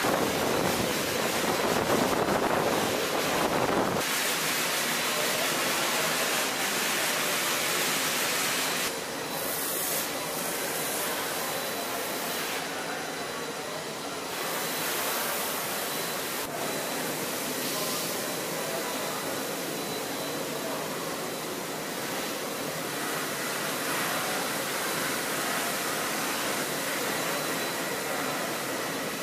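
Water spraying from a robotic washing arm's nozzle onto a fighter jet's skin, a steady hiss. It drops in level about 4 seconds in and again about 9 seconds in.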